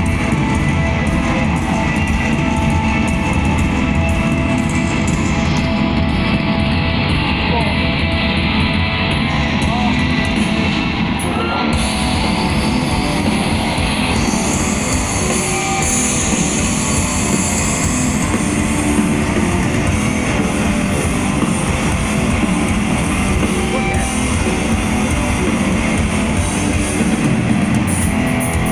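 A hard rock band playing live through an arena PA: distorted electric guitars and drum kit in a loud instrumental passage, recorded from the stands.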